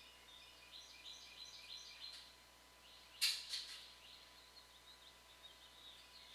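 Faint bird chirping in the background, and one brief rustle of the foam model plane being handled a little over three seconds in.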